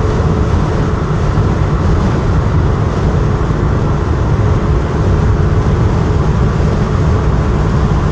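Car travelling at highway speed, heard from inside the cabin: a steady low rumble of engine and tyre-on-road noise with a faint steady hum.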